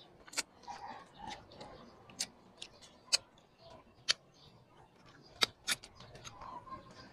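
Eating sounds: chewing with irregular sharp, wet mouth and lip-smacking clicks, about half a dozen loud ones spread unevenly, the loudest a pair about five and a half seconds in.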